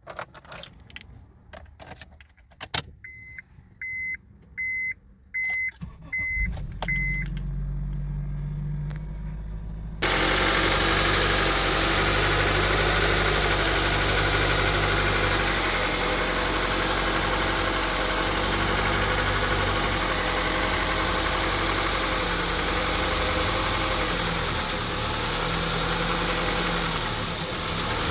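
A few clicks and six short beeps, then the 2002 Honda CR-V's 2.4-litre four-cylinder engine starts and idles very roughly, its speed going up and down. The unstable idle is a symptom being diagnosed, with a dirty or faulty idle air control valve or throttle body suspected.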